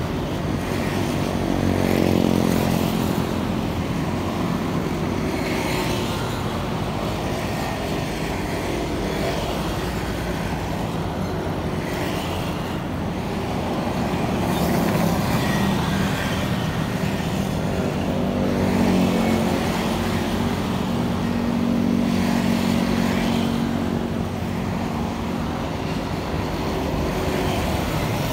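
Road traffic: a steady stream of motor scooters and cars passing close by, engines swelling and fading as each one goes past, with a few louder engine passes about two seconds in and again past the middle.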